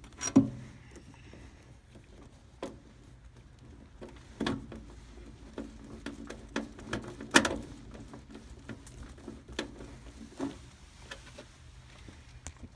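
Scattered clicks and knocks of a nut driver and gloved hands against an air handler's sheet-metal cabinet as screws are driven, one every second or two, the sharpest about seven seconds in, over a faint steady hum.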